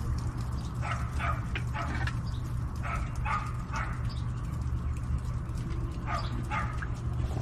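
Short high-pitched yips in quick groups of two to four, about a second in, three to four seconds in, and again near six seconds, over a steady low hum.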